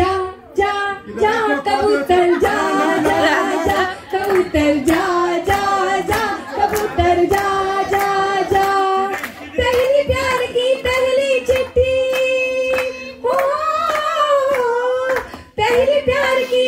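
A group singing a song together, with hands clapping a steady beat in time.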